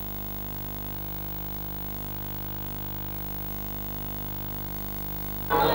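Steady electrical hum made of several fixed tones, unchanging, with the game sound gone; near the end louder sound cuts back in suddenly.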